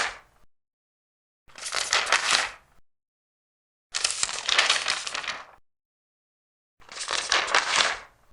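Large paper pages turned one at a time: three crackling rustles of a second to a second and a half each, separated by silent gaps.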